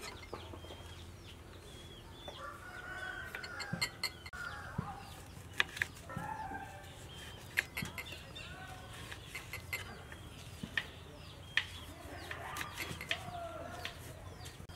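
Chickens clucking and calling throughout, with several sharp knocks of a knife coming down on a wooden cutting board as limes are cut into wedges.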